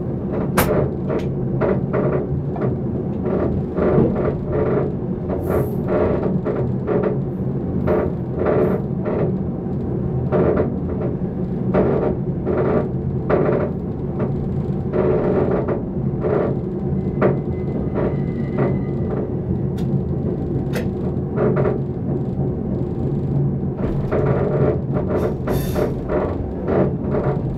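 Background music with drums over a sustained low drone.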